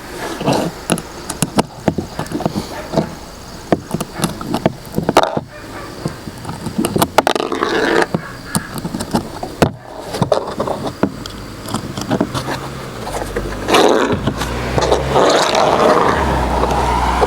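Many small metallic clicks and rattles of .22LR cartridges being handled and pressed one by one into a Ruger 10/22 rotary magazine. A steady low rumble comes in near the end.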